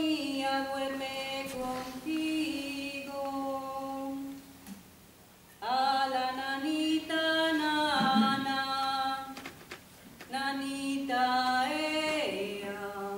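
A woman singing a Spanish lullaby (nana) unaccompanied, in long held phrases with short pauses between them.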